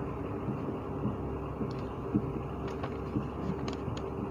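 Steady low background hum with a faint held tone, and a few faint clicks.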